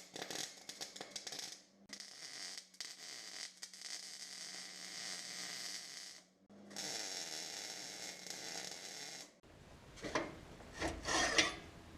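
Welder laying several beads of a few seconds each, a crackling hiss over a low hum with short pauses between them. It stops about nine and a half seconds in, followed by a few metal knocks.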